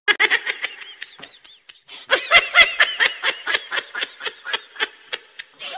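A person giggling in quick high-pitched breaths of laughter. The laughter fades for a moment about a second in, then carries on at about four a second.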